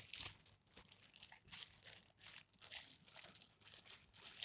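A bag of stuffing being opened and handled by hand: an irregular run of short rustles, several a second.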